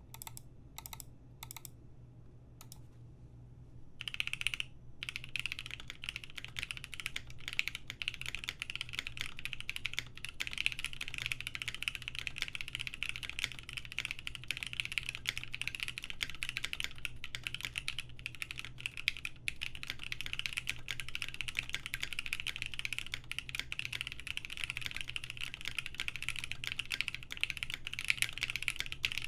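Beak 6.5 custom mechanical keyboard typed on: lubed and filmed Gateron Black Ink v2 linear switches on a polycarbonate plate under GMK keycaps. A few single keystrokes come first, then about four seconds in it becomes fast, continuous typing. A low fan hum runs underneath. The builder finds the board's sound somewhat hollow.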